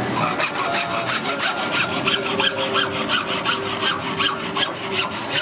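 Hand hacksaw cutting through a beef bone: quick, even back-and-forth strokes, roughly two to three a second.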